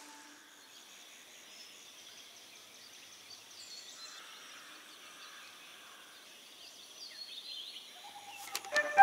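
Quiet room ambience with faint bird chirps in the background; music starts to come in near the end.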